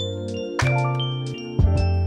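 Instrumental background music: held chords over a low bass note that changes about every second, with short high notes and a few sharp drum hits.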